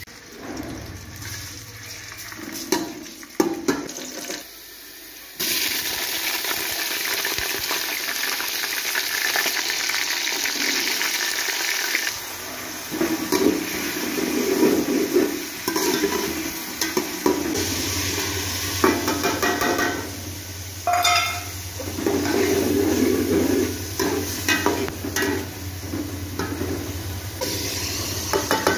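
Chicken pieces and peas sizzling as they fry in oil in a metal pot, with a metal slotted spatula scraping and clinking against the pot as they are stirred.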